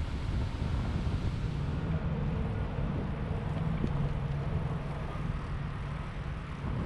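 Wind buffeting the microphone of an action camera riding on a moving electric bike, over a steady low road rumble. A faint low hum comes in for a few seconds midway.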